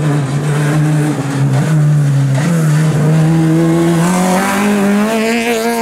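Rally car engine at high revs. About halfway through the note breaks briefly, then climbs steadily in pitch as the car accelerates.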